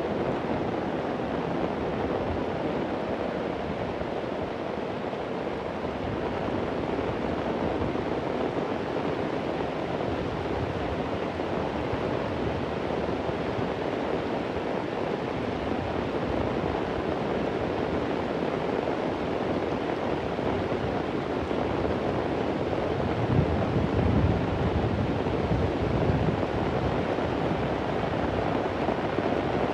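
Heavy rain falling steadily, a dense even hiss, with a low rumble of thunder swelling briefly about three-quarters of the way through.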